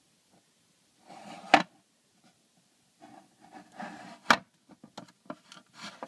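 Hands turning a plastic figure on its base: rubbing and scraping, with two sharp knocks about one and a half and four seconds in, then a few lighter clicks.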